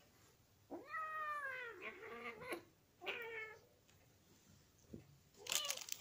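Kitten meowing while an adult cat pins and wrestles it in play-fighting: one long drawn-out meow about a second in, a few shorter meows after it, and a harsher cry near the end.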